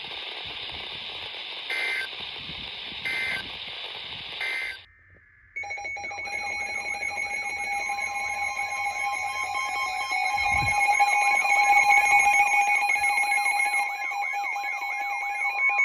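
Three short electronic data bursts of an Emergency Alert System end-of-message code over weather-radio static. After a brief gap, an electronic alert tone sounds: several steady tones with a rapidly repeating warble, and a second steady tone joins about two seconds later.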